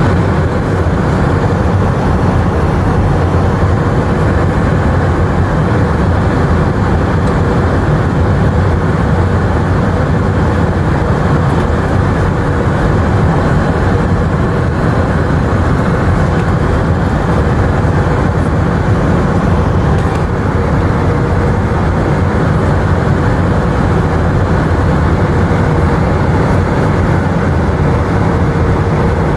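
Airbus A319 airliner cabin in flight: the steady roar of engines and airflow, with a faint steady whine, heard from a window seat.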